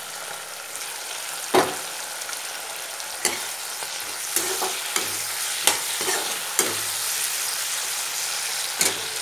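Chopped mustard green stalks sizzling in hot oil in a kadhai while a perforated metal spatula stirs them, with several sharp scrapes and knocks of the spatula against the pan over the steady sizzle.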